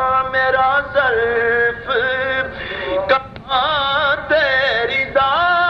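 A solo male voice singing a naat, Urdu devotional poetry, in long ornamented held notes that waver in pitch, with a few short breaks.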